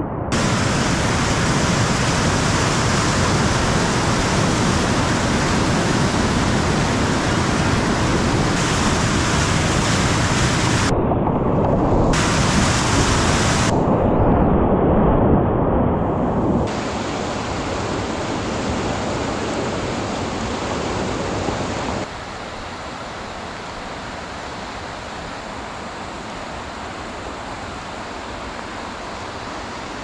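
Whitewater of a river rapid rushing steadily, heard across several cut-together shots. It drops in level a little past halfway and again about three-quarters of the way through.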